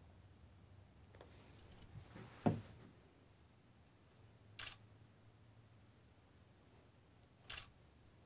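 Makeup tools being handled during lip-colour application: a sharp small click about two and a half seconds in, then two softer, hissier clicks a few seconds apart, over a faint low hum.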